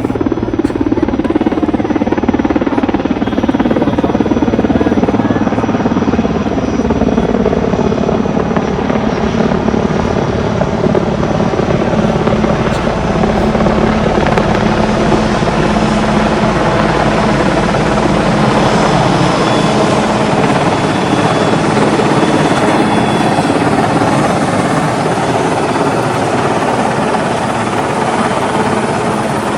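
Helicopter flying close overhead: a loud, steady rotor and turbine noise.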